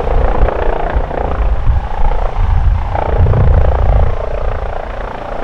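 Airbus Helicopters EC135 P2 (H135) air-ambulance helicopter on approach to land, loud: a low, pulsing rotor beat under a steady whine.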